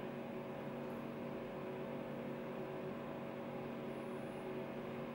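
Steady mechanical hum of room tone: a few held tones over a soft hiss, unchanging throughout.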